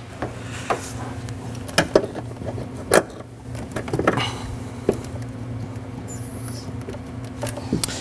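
Clicks and knocks of an A/C service hose's quick coupler being handled and snapped onto a vehicle's low-side refrigerant service port, over a steady low hum, with a short high hiss about six seconds in.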